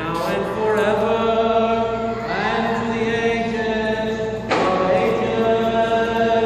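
Byzantine chant: voices sing a slow melody over a steady held low note, with a new, louder phrase entering about two-thirds of the way through.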